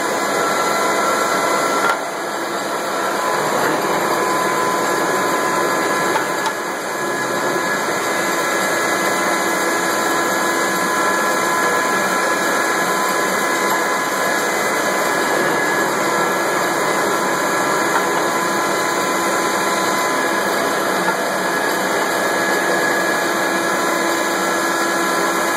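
Taiyo Seiki 4T lathe running: a steady mechanical hum from the motor and headstock gearing, with a steady gear whine over it. The level dips briefly about two seconds in, then settles back to the same steady run.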